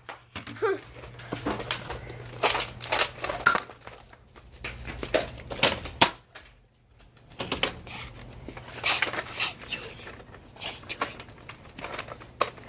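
An irregular run of sharp clicks, snaps and knocks over a low steady hum, broken by a near-silent gap of about a second just after the middle.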